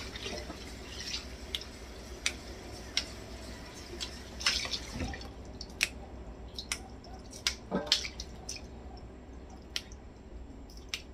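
Kitchen tap running into a steel bowl of kangkong in a stainless steel sink as the leaves are rinsed; the flow stops about five seconds in. Scattered drips, small splashes and clicks of wet leaves being handled go on throughout.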